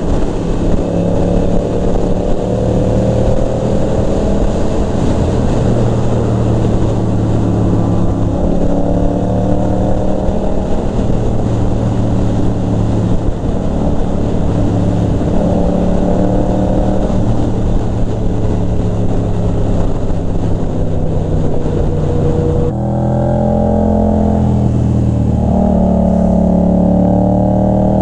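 Yamaha motorcycle engine running under way, heard from the rider's seat with wind rush, its note repeatedly climbing as the throttle opens. About three-quarters of the way through the sound changes abruptly to a stronger, steadier engine note with less hiss.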